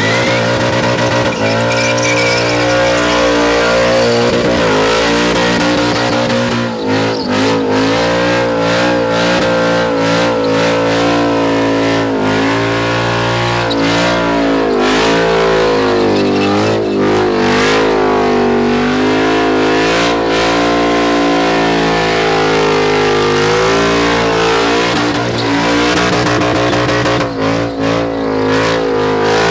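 Holden VH Commodore's LS3 Chev V8 held at high revs through a burnout, the revs wavering up and down continuously while the rear tyres spin and smoke on the pad.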